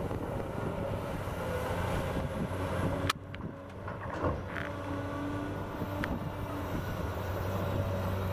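Caterpillar 320D L tracked excavator working, its diesel engine running steadily under load as the hydraulics swing the bucket over a dump truck and empty topsoil into its bed. There is a brief thump about four seconds in.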